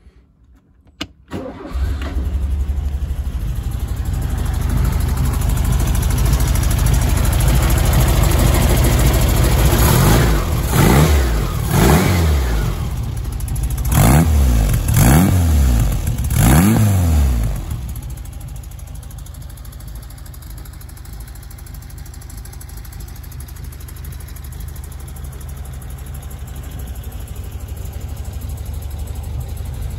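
1957 Porsche 356 Speedster replica's engine cranking briefly and catching on a cold start, then running at a fast idle. It is blipped about five times in quick revs, then settles to a lower, steady idle.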